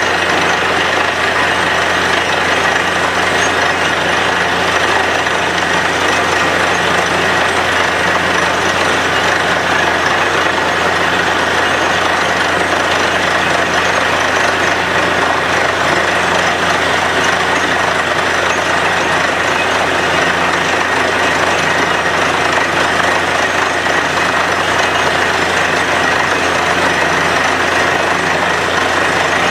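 Truck-mounted borewell drilling rig running steadily while it drills, its engine and drilling din loud and even, with a slow, regular low throb; muddy water and rock cuttings gush out of the bore.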